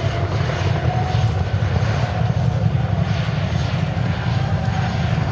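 Boeing CH-47J Chinook tandem-rotor helicopter flying past: its twin rotors make a loud, rapid low thudding, with a steady whine from its twin turbine engines above it.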